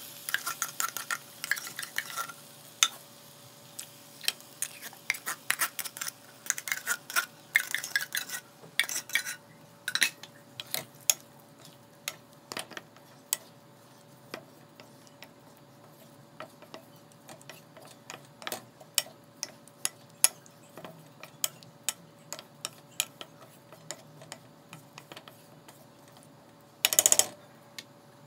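A spatula scraping and clinking against a stainless-steel wok while stirring baked beans in a thick tomato sauce, with many short clicks, busiest in the first half. A louder short clatter comes near the end.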